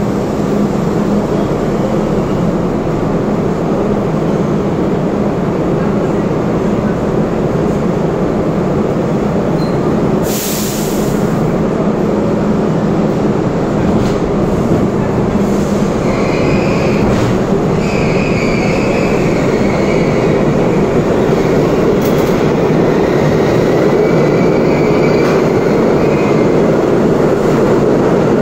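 R32 subway train standing at a station platform with a steady hum. A short hiss of air comes about ten seconds in. The train then pulls out, its noise building as it gathers speed, with brief high wheel squeals.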